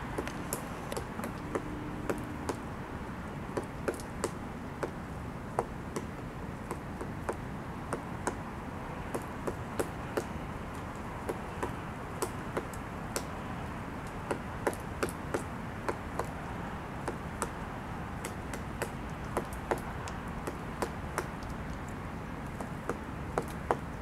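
Pileated woodpecker chiselling into a tree trunk while excavating for insects: single sharp knocks on wood at an uneven pace, roughly one or two a second, over a steady low background hum.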